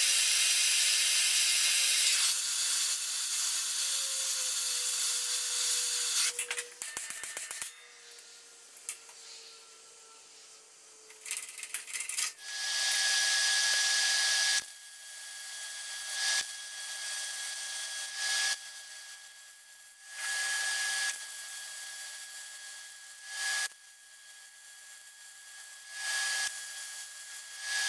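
Arc welding on the steel inner C knuckle of a Dana 44 axle: a crackling hiss in bursts of one to two seconds, repeated several times, as tack welds are laid. A long steady hiss fills the first six seconds, with a few clicks after it.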